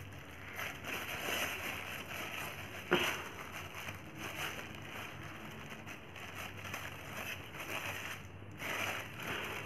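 Plastic bag of rangoli powder rustling softly as hands work to open it, with one short sharp click about three seconds in.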